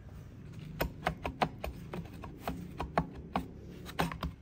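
Irregular clicks and knocks, about a dozen, from the recoil starter housing of an old two-stroke brush cutter engine being rocked and worked loose from the engine by hand, starting about a second in.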